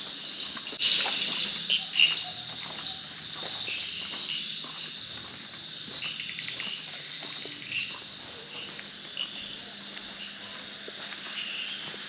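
Evening chorus of crickets and frogs: steady high insect trills with scattered chirping calls. A couple of brief louder sounds come about one and two seconds in.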